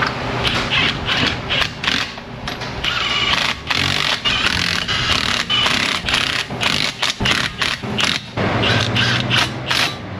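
Brake parts and hand tools being worked on a car: a run of irregular metal clanks, knocks and scrapes as the brake pads and caliper are fitted.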